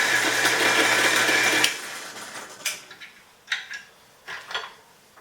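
Drill press running, its bit cutting through thick steel plate lubricated with cutting fluid, with a steady motor hum under the cutting noise. Less than two seconds in the motor stops and the sound fades as it spins down, followed by a few light metallic clinks.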